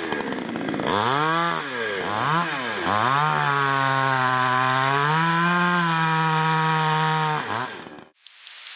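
Farmertec JonCutter G5800 55–60cc two-stroke chainsaw revving up and down several times, then holding a steady pitch under load for about four seconds as it cuts through a pine log. It drops back and cuts off abruptly near the end.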